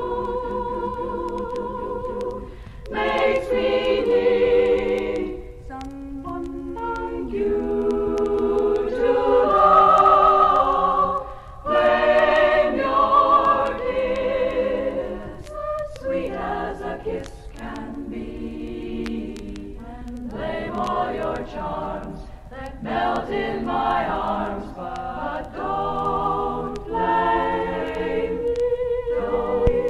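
Women's a cappella group singing in close harmony, unaccompanied, in phrases with short breaks between them, from a 1961 LP recording.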